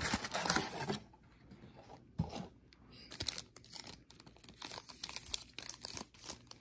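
Plastic wrapping on a box of trading cards crinkling and tearing as it is opened by hand, loudest in the first second, then quieter rustles and small clicks of card and packaging being handled.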